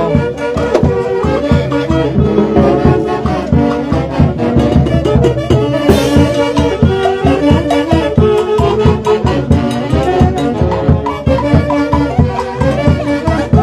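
Festive brass-band music playing, with held horn notes over a steady, even beat.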